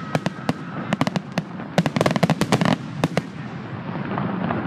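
Fireworks finale barrage: a rapid string of aerial shell bangs and crackles, densest about two seconds in and thinning out after about three seconds into a lingering rumble.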